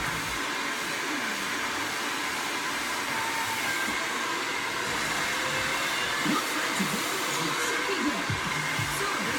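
Hair dryer running with a steady airy rush.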